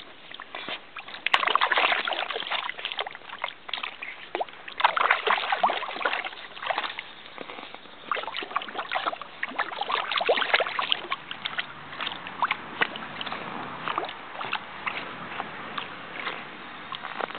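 Shallow water in an inflatable kiddie pool splashing and sloshing as a small dog wades through it, in irregular bursts of small splashes.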